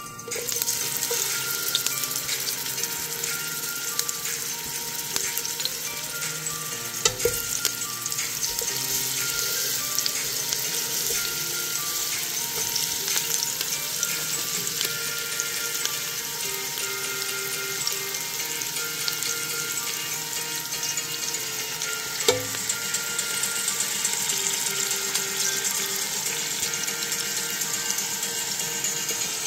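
Sliced red onions and a sprig of curry leaves sizzling steadily in hot oil in a pot. Two sharp knocks break through, one about seven seconds in and one about twenty-two seconds in.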